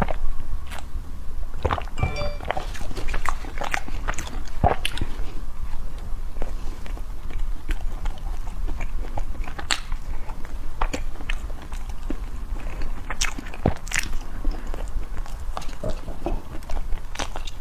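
Close-miked eating: a person biting into and chewing soft round cakes, with scattered wet mouth clicks and smacks over a steady low hum.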